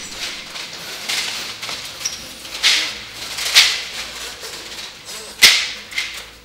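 Slatted window roller shutters being lowered by hand, rattling down in several short bursts of clatter. The loudest and sharpest comes about five and a half seconds in.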